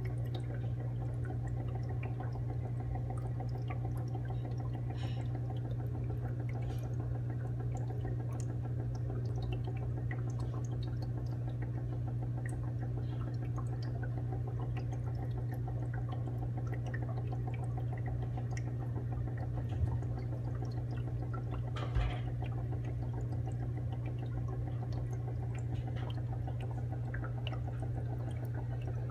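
Aquarium pump running with a steady low hum, water trickling and bubbling over it with scattered small ticks. Two brief, slightly louder knocks come about two-thirds of the way through.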